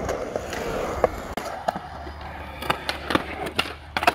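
Skateboard wheels rolling on concrete, followed by a string of sharp clacks of the board on the ground, the loudest near the end.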